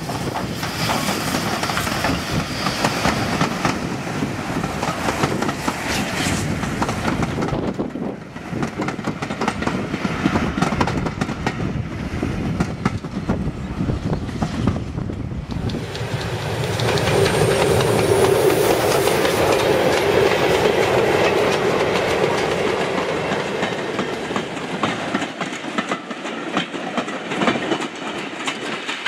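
Bulleid light Pacific steam locomotive passing close with a train of coaches, with a rapid clatter of wheels on the rails, then drawing away.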